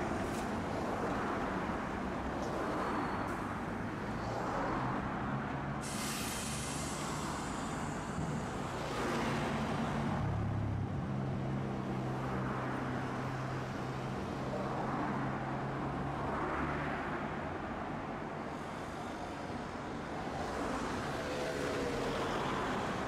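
Tosaden streetcar running: steady running noise with a low hum that comes and goes, and a short hiss about six seconds in.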